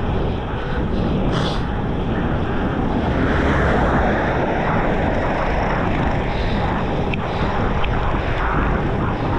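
Wind rushing over the microphone of a moving bicycle, a steady noise with a deep rumble, and a brief hiss about a second and a half in.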